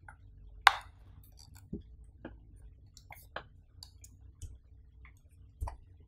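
Small, sharp plastic clicks and taps as a cable plug is pushed into a RAVPower Blade 20100mAh power bank and the power bank is handled. One loud click comes just under a second in, then lighter clicks and taps are scattered through the rest.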